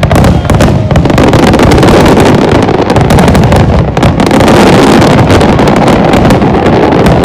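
Fireworks barrage: many shell bursts and crackles following one another so quickly that they run together into a loud, continuous rumble with no pause.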